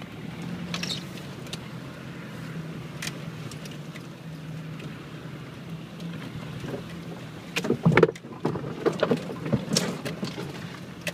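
4x4 engine running steadily at low speed off-road, heard from inside the cabin. From about two-thirds of the way in, a run of knocks and clunks breaks in, the loudest one near the end, as the vehicle lurches over the muddy ruts.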